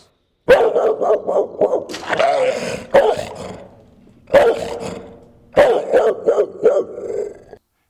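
A dog barking aggressively in about four quick volleys of barks, teeth-bared threat barking at a kennel fence.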